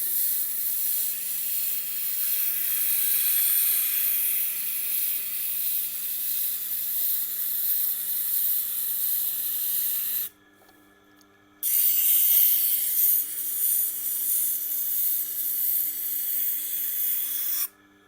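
Tormek wet grinding wheel being smoothed to a finer grit with a dressing tool held against the turning stone. A steady high hiss of abrasive rubbing runs over the motor's low hum. The tool is lifted off for about a second a little past the middle, then the hiss resumes and stops near the end while the motor keeps running.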